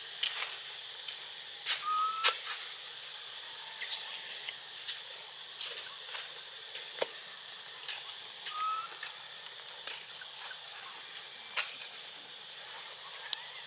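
Forest ambience: a steady high hiss with a thin, even high tone through it, broken by scattered sharp clicks and snaps among the branches and two short rising chirps about six and a half seconds apart.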